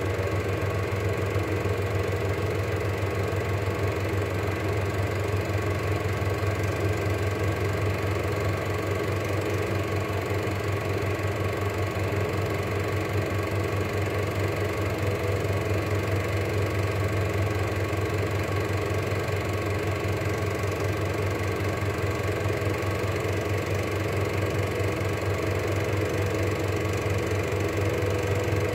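Cine film projector running steadily: a constant motor hum with the fast, even clatter of the film-advance mechanism.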